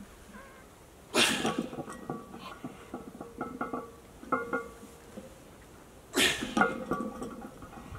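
A weightlifter's forceful breath bursts, like coughs or grunts, under a 122.5 kg barbell squat, twice: about a second in and about six seconds in, each dying away over about a second. Fainter short ringing tones come in between.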